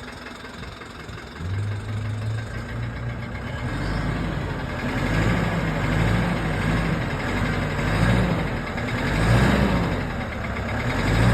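Mitsubishi Triton's 4N15 2.4-litre turbo-diesel engine running. It comes up in level about a second and a half in, and its revs rise and fall several times in the second half. The uploader calls this a knocking engine and puts it down to piston-ring trouble caused by the turbocharger.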